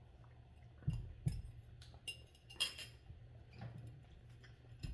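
Drinking broth straight from a bowl: faint gulps and handling of the bowl, with a couple of soft knocks about a second in, a short hiss just past the middle and light clinks of the bowl.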